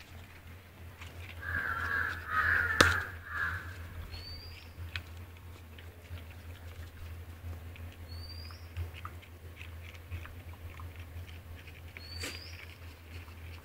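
A crow cawing harshly several times about two seconds in, with a sharp click among the caws. A short rising chirp comes back about every four seconds over scattered small ticks and a steady low hum.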